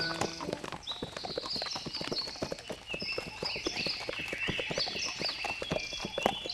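Several horses walking on a dirt track, their hooves clip-clopping in a dense, uneven patter, with high chirps above.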